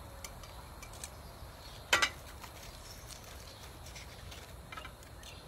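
Metal tongs and aluminium foil being handled as a barbecued pork steak is lifted out of a foil-lined pan: a few light clicks and one sharper clack about two seconds in, over a steady low outdoor background.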